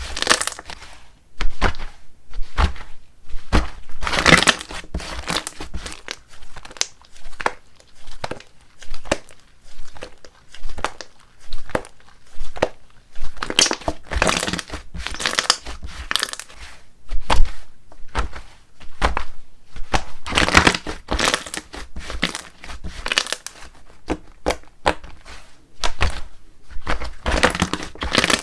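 Slime being squished, stretched and folded by hand close to the microphone, crackling and popping in irregular bursts with short pauses between.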